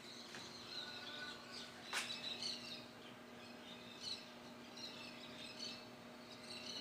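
Loren-Sid Diplomata ceiling fan running with a faint, steady hum, while small birds chirp repeatedly in the background; a single sharp click about two seconds in.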